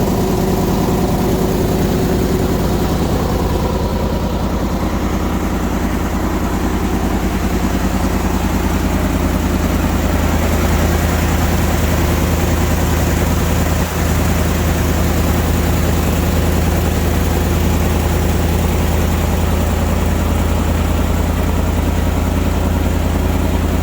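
Petrol engine of an engine-driven air compressor running steadily with a low, even hum.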